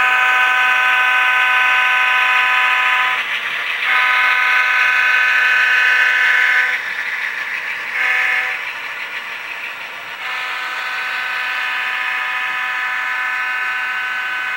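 Model diesel locomotive's sound decoder blowing a multi-chime air horn in the grade-crossing signal: two long blasts, a short one, then a final long blast that is held longest and ends near the end.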